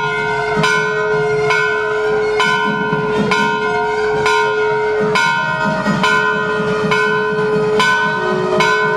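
Temple bells ringing, struck in a steady rhythm about once a second, each stroke ringing on into the next.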